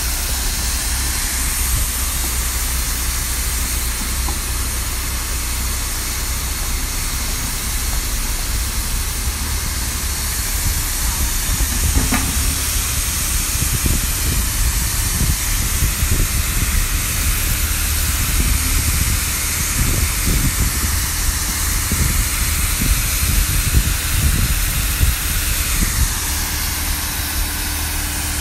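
Machinery at work: a steady loud hiss over the low rumble of an engine running, with irregular low thumps in the second half.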